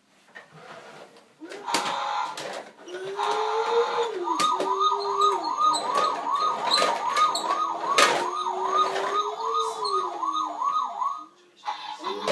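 Toy garbage truck's electronic sound module playing a fast warbling siren, about three wails a second, over a slower rising and falling tone, with a few sharp clicks. It stops briefly shortly before the end and starts again.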